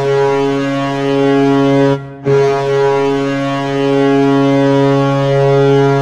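Ice hockey goal horn sounding a deep chord of several steady pitches: a blast of about two seconds, a brief break, then a second, longer blast.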